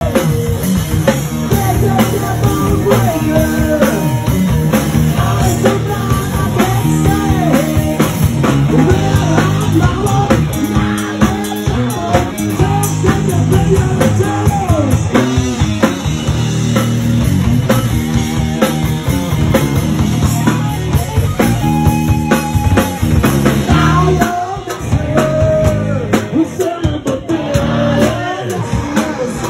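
Live rock band playing: a man singing into a microphone over electric guitar and a drum kit.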